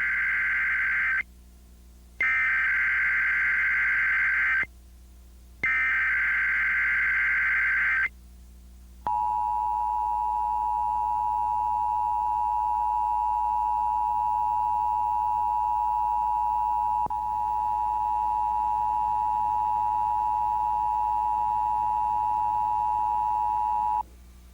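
Emergency Alert System test alert. The SAME digital header plays first: three bursts of buzzing data tones, each about two and a half seconds long with a second's gap between them. Then comes the EAS two-tone attention signal, a steady dual-pitched tone held for about fifteen seconds, which stops shortly before the end.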